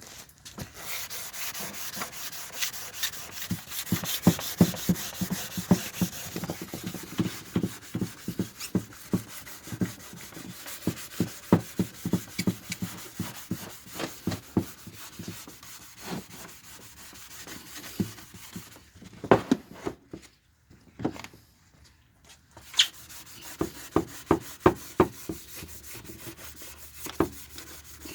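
2000-grit sandpaper wet sanding a yellowed, hazy plastic headlight lens by hand, in rhythmic back-and-forth strokes, with a pause of about two seconds some two thirds of the way through.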